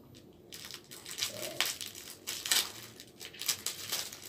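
Plastic packaging crinkling and crackling as it is cut open with scissors and handled: the sealed wrap around a lip stain. It begins about half a second in, as a run of irregular crackles with a few sharper snaps.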